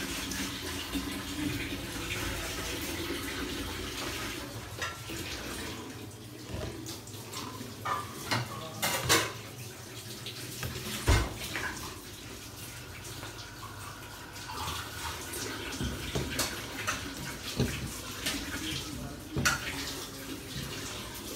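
Metal ladle stirring a wide metal pan of milky semolina halwa mixture as it cooks: liquid sloshing, with several sharp knocks of the ladle against the pan from the middle on.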